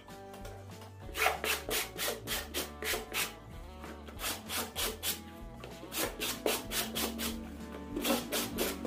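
A wooden stick rubbed in quick back-and-forth strokes, about three a second, across a foam sandal sheet, pressing it down onto the sheet beneath. The strokes start about a second in.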